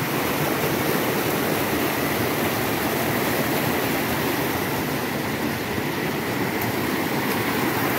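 Steady, loud rush of a swollen waterfall, muddy floodwater churning and pouring over rocks, running high after the reservoir overflowed.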